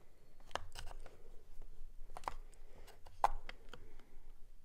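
Thin metal prying tool scraping and clicking against a glued-in powder pan and the metal palette compact as the pan is worked loose, with a handful of sharp clicks among light scraping.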